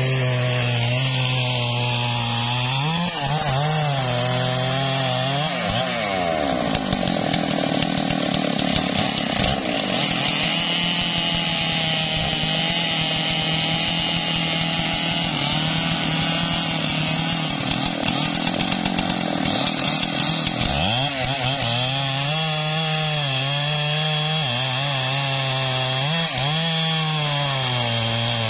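Large two-stroke chainsaw cutting through a thick trembesi (rain tree) trunk. The engine revs rise and fall for the first few seconds, are held high and steady under load through the middle, then waver up and down again near the end.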